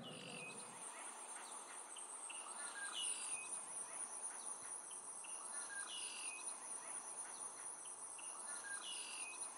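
Tropical forest ambience: a steady high insect hum with a bird repeating a short falling call about every three seconds, among fainter chirps.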